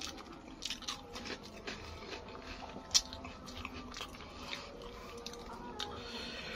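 Close mouth sounds of a man chewing a mouthful of rice, boiled tofu and boiled egg, with scattered wet clicks and smacks and one sharper click about three seconds in.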